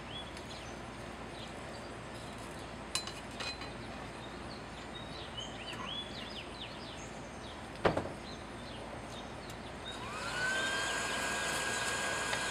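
Birds chirping in the background, with a few light metal clinks and one sharp knock about eight seconds in. About ten seconds in, the forge's air blower switches on: a motor whine that rises in pitch as it spins up and settles into a steady tone.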